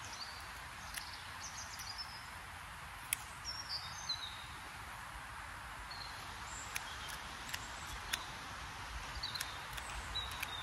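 Small birds chirping, with short high calls, some falling in pitch, over a steady outdoor hiss and a low rumble of wind on the microphone. Scattered sharp clicks run through it.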